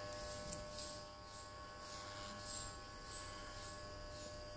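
FYC RF-666 electric hair clipper running with a faint, steady buzz. A faint high chirp repeats about twice a second behind it.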